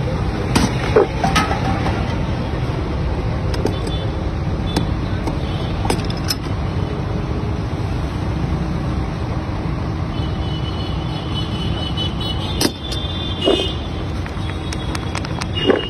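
Steady low rumble of street traffic, with a few sharp clicks and knocks from utensils being handled.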